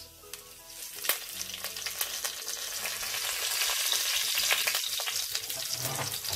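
Fresh curry leaves sizzling and crackling in hot oil with cumin and fennel seeds, a spitting hiss with sharp pops that builds up about half a second in and keeps going.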